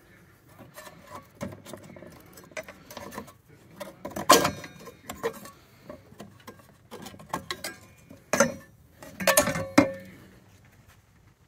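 Irregular clicks, knocks and light metallic clatter from hands handling parts in a snowmobile's engine bay, with the engine not running. The loudest knock comes about four seconds in, and a cluster of sharper clanks comes near the end.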